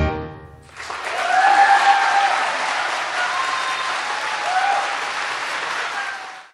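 The last chord of the song dies away, then audience applause starts about a second in, with a few voices calling out, and cuts off suddenly at the end.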